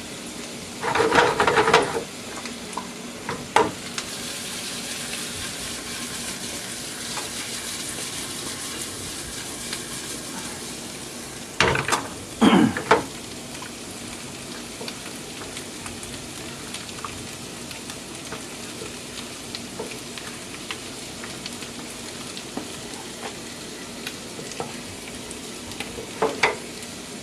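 Cream pan sauce, made on deglazed chicken fond and white wine, sizzling steadily in a pan on the stove. A utensil stirring in the pan clatters against it in short louder bursts about a second in, around the middle, and near the end.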